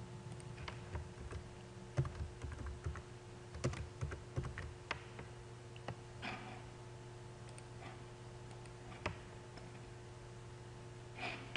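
Computer keyboard typing and mouse clicks: irregular taps, thickest in the first five seconds, then a few scattered clicks, over a faint steady hum.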